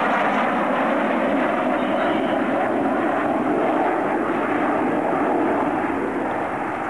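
Jet engines of a formation of fighter aircraft passing overhead: a steady, loud jet noise, easing slightly near the end.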